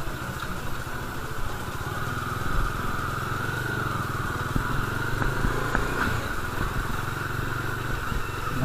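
Bajaj Dominar motorcycle's single-cylinder engine running at low road speed, picking up a little speed near the end.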